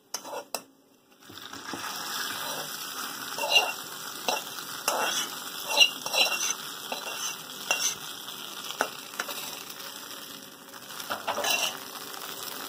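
Hot ghee and fried cashews sizzling as they are poured from an aluminium kadai into sweet pongal, with a metal spoon scraping and clicking against the pan. The sizzling starts about a second and a half in.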